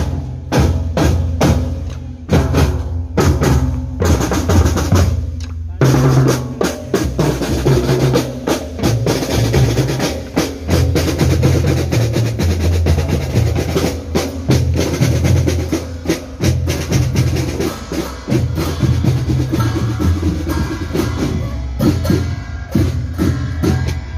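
Marching drum band playing: snare drums, tenor drums and bass drums beat a rhythm with rolls, and the playing grows denser about six seconds in, with bell-lyra notes over the drums.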